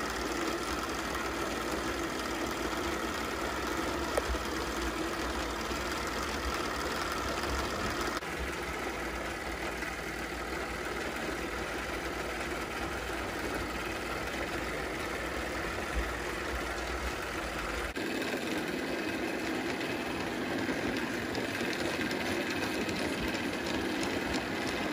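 Small spirit-fired Wilesco D18 live steam engine running steadily at moderate speed, driving its dynamo to power LED lights. The running sound shifts abruptly twice.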